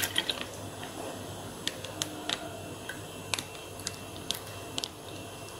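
Plastic milk packet crackling with sparse, irregular sharp clicks as it is squeezed to pour milk into a pan.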